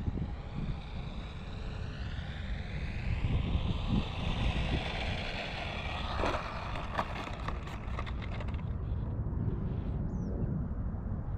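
RC model airplane's motor and propeller whine, shifting in pitch as the plane comes in low. About six seconds in, a run of sharp clicks and rattles as it touches down and rolls on the asphalt runway. The whine then fades away. Wind rumbles on the microphone throughout.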